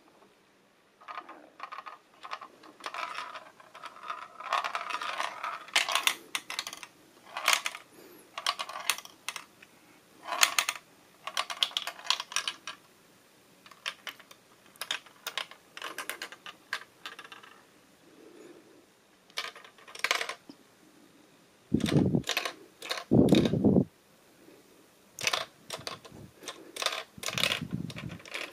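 Small plastic ball rolling and clattering through a hand-tilted LEGO Magic Maze, with irregular clicks and short rattles as it knocks against the brick walls and obstacles. Two heavier thuds come about three-quarters of the way in.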